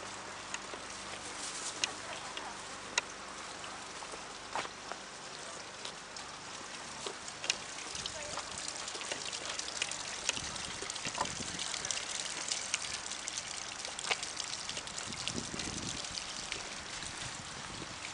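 Falling water: a steady hiss with many scattered sharp ticks, a little louder and busier in the second half.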